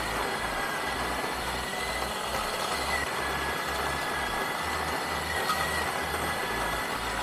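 Bodum Bistro electric burr grinder running steadily, grinding a single dose of coffee beans that were misted with water to cut static and retention, its motor holding a steady whine.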